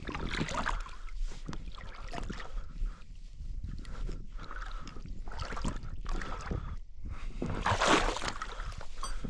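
Water sloshing and splashing in irregular strokes as someone moves through the shallow marsh, with a louder splash about eight seconds in.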